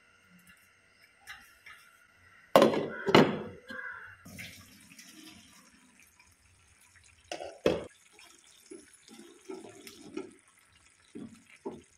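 Cooking sounds at a pan of prawn and broad bean curry. Two loud knocks come about two and a half and three seconds in, then a short stretch of liquid noise. A slotted spatula then knocks and scrapes against the nonstick pan several times as the curry is stirred.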